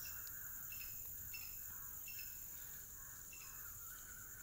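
Faint background of insects chirping: a steady high trill with short chirps repeating about once a second.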